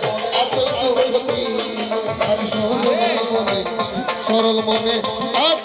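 Bengali folk band playing: a steady beat of hand drums under a held harmonium drone, with a melody gliding above it.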